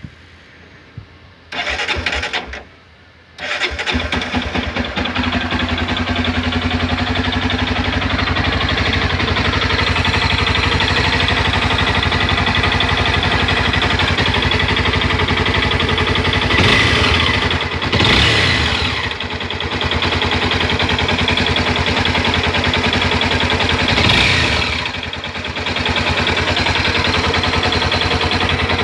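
Honda CB 300 single-cylinder engine cranked briefly on the starter without catching, then started about three seconds later and left idling steadily. It is revved and released three times near the middle and later on. The owner says this engine makes a strange noise.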